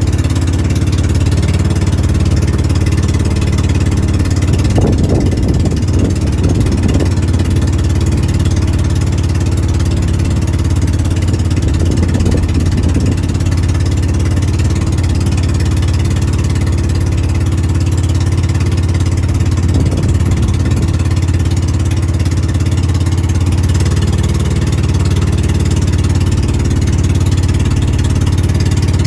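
Engine of a motorized outrigger boat (bangka) running at a steady pitch, heard from on board.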